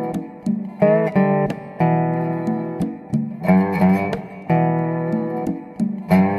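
Blues guitar playing an instrumental passage without singing: plucked notes about once a second, several bent in pitch.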